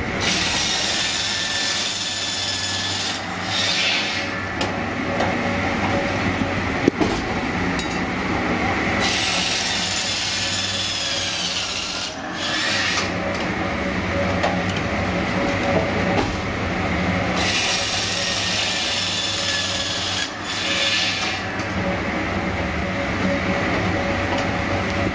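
Circular saw of an automatic log segment sawing machine cutting through raw logs three times, each cut lasting about three to four seconds, with the machine running steadily between cuts.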